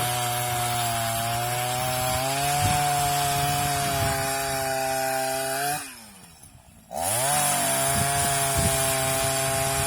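Chainsaw running at a steady high speed while cutting wood. About six seconds in, its note falls away and the sound nearly stops; about a second later it comes back at full speed.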